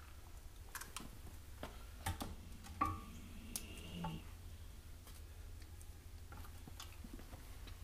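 Scattered light clicks and taps from supplies being handled with gloved hands at a cart, over a steady low hum. A brief higher squeak comes about three seconds in.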